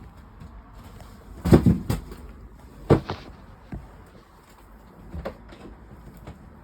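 Knocks and clatter of a small window panel being fitted into a narrowboat's duck hatch, where it clips in on magnetic catches: a loud cluster of knocks about a second and a half in, a sharp single knock about three seconds in, then a few lighter knocks.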